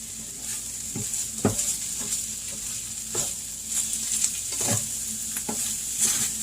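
Ground taco meat in sauce sizzling in a frying pan while being stirred, a steady hiss with a utensil knocking and scraping against the pan about once a second.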